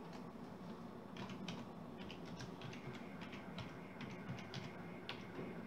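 Typing on a computer keyboard: about a dozen faint key clicks at a steady pace, starting about a second in, as a short command is entered.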